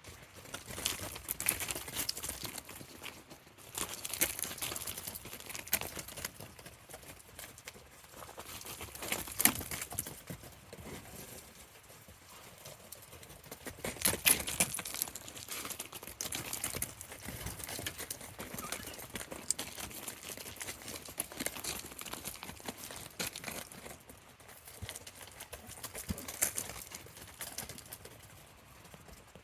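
Young goats playing: hooves clattering and scuffling, in irregular bursts of sharp knocks.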